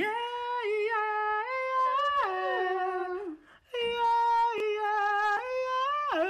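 A man singing a tune without words in a high voice: long held notes that step up and down in pitch, with a brief break about three seconds in.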